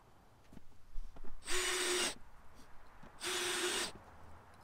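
Cordless drill running in two short bursts, a second or so apart, driving screws into a plastic chicken feeder.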